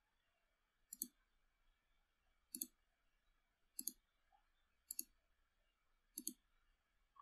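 Five faint clicks of a computer mouse button, each a quick press-and-release pair, spaced about a second and a half apart.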